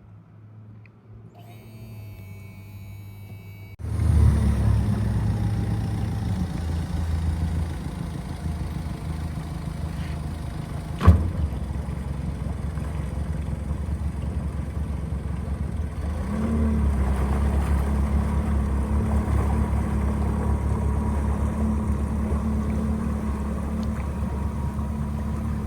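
An engine running with a steady low rumble. It starts suddenly about four seconds in, and there is one sharp knock about eleven seconds in.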